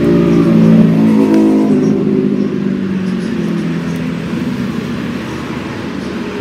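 A motor vehicle engine running, loudest about a second in and then slowly fading, as if passing by.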